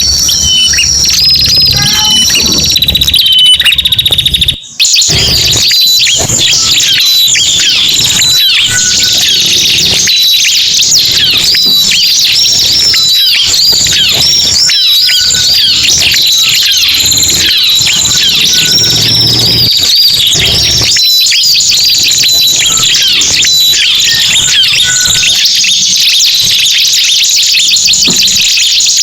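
Bird-lure recording of ciblek (bar-winged prinia) and prenjak calls, many fast, high chirps and trills overlapping densely. The sound cuts out for a moment about five seconds in, then resumes.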